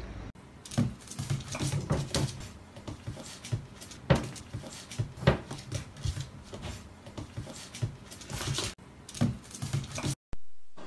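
Irregular taps, knocks and scratches of a hand on a fabric-covered chair back, several a second, ending suddenly near the end.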